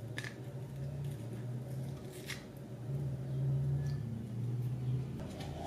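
Plastic spiralizer lid and blade disc of a Ninja food processor handled by hand: a few light clicks and knocks as the leftover potato piece is picked off the disc. Under them runs a low hum that swells and fades.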